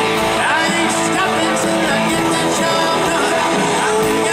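Southern rock band playing live: electric guitars, drums and keyboards, with a lead line that glides up and down in pitch.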